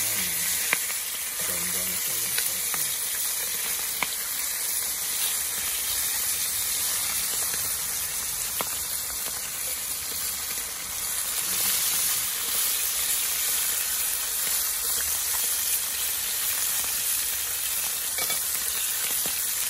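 Salmon head pieces sizzling steadily as they fry in oil in a nonstick skillet, with a few sharp clicks of metal tongs against the pan as the fish is turned.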